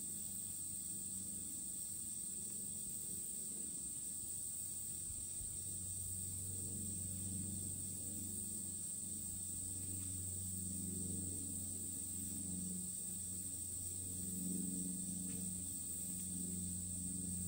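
Steady high-pitched drone of an insect chorus, over a low hum that swells slightly now and then.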